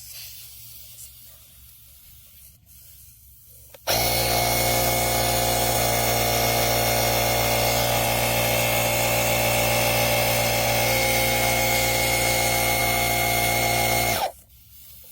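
Portable electric air pump (tire inflator) switching on about four seconds in, running steadily with a buzzing, many-toned drone for about ten seconds while pumping air through its screw-on hose, then cutting off suddenly. Faint handling noise comes before it starts.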